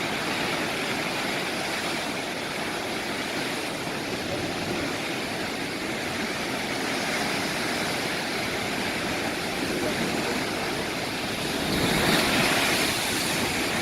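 Ocean surf: a steady wash of breaking waves, with a louder surge near the end.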